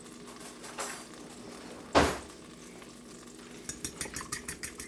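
Butter sizzling in a hot cast iron skillet, with one loud knock about two seconds in. Near the end, eggs and half and half are whisked with a fork against a bowl in quick clicking strokes, several a second.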